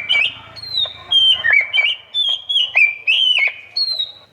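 Electronic horn speaker playing its bird-sound mode, shuffling through different bird calls: a quick string of short whistled notes. Most notes are level or slightly falling, with a few quick upward chirps.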